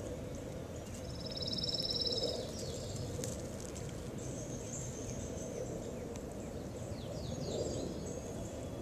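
Outdoor ambience with wild birds calling: a fast trill about a second in, and a few quick chirps near the end, over a steady high hiss. No sound is heard from the tortoise's eating.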